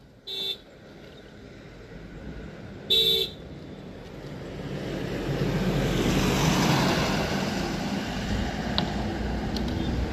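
A vehicle horn toots twice, briefly, about half a second in and again about three seconds in. Then a vehicle on the road comes nearer and passes, its noise building to a peak around six to seven seconds in.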